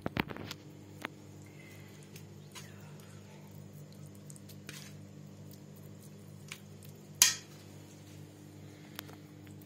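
Metal bowl and pot clinking and knocking now and then as cooked meat is shredded by hand in the bowl: a quick cluster of clinks at the start and the loudest sharp knock about seven seconds in. A steady low hum runs underneath.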